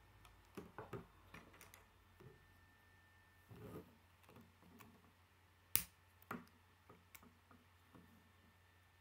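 K'nex plastic parts clicking and knocking as they are handled and snapped together, with one sharp, loud click a little before six seconds in.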